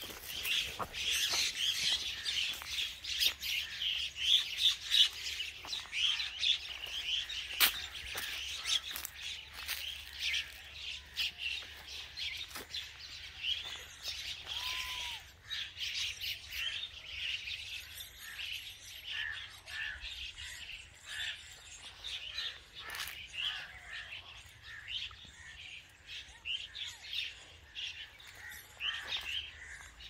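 Myna birds chirping and calling: a dense, continuous run of short, high calls, busiest in the first few seconds, with one brief whistle that rises and falls about halfway through.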